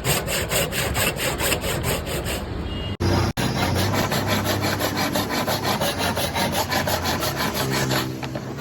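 Wood being sawn with fast, even strokes, about five a second, broken by two brief dropouts about three seconds in. A low steady hum runs under the sawing for most of the rest.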